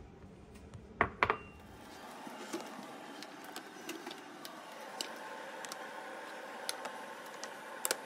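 Ceramic rice bowl set down on a kitchen countertop: two sharp knocks about a second in, the loudest sounds here, followed by a faint steady hum with scattered light clinks and handling sounds.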